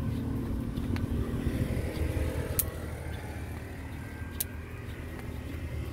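Low, steady rumble of a motor vehicle engine running, with a metal scoop scraping through hot salt in a metal pan and two sharp clicks of the scoop a couple of seconds apart.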